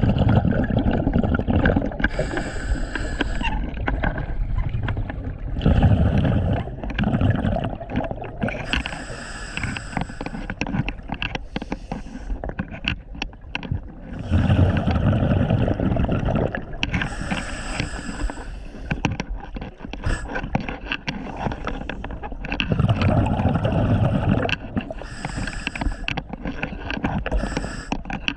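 Scuba diver breathing through a regulator underwater: each inhale is a hiss through the demand valve, each exhale a loud burst of bubbling. About four breaths, one roughly every eight seconds.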